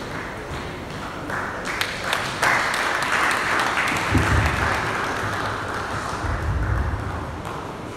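Audience applauding, swelling about two and a half seconds in and fading away near the end.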